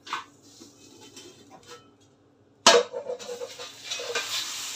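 Light clatter of metal pans, then a loud metal clank about two-thirds of the way through as a frying pan is set down on the gas stove. A steady sizzle of bread frying in butter follows.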